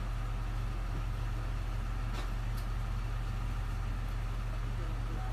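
Steady low engine hum of an idling vehicle, with a couple of faint clicks a little over two seconds in.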